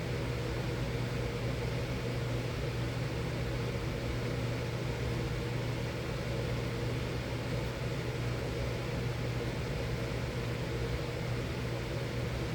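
Miller E3 furnace running steadily, a low hum under an even rush of air from its blower.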